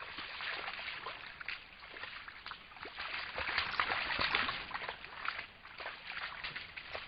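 Red deer stag wading and splashing in the muddy water of a wallow, the water sloshing and slapping around its legs, loudest in the middle.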